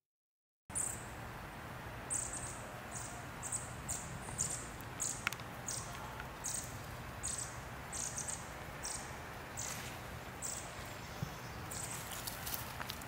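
Short high-pitched cricket chirps, repeating irregularly about twice a second over a faint outdoor background, starting a moment in after a brief silence. A single sharp click comes about five seconds in, and some rustling near the end.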